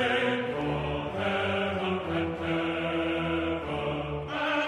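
Choral music: voices singing slow, held notes in a chant-like line.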